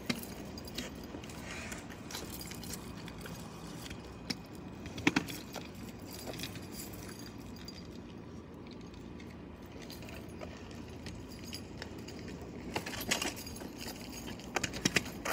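Steady background with scattered metallic clinks and rattles from a kick scooter being handled: one sharp clink about five seconds in and a cluster near the end as the rider sets up on it again.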